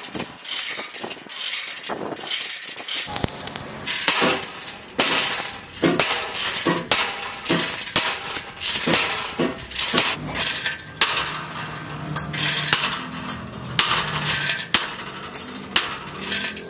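Steel screw-conveyor flighting clanking and clinking: irregular sharp metal-on-metal knocks as the stacked steel flight sections are hoisted, stretched into a spiral and worked into shape.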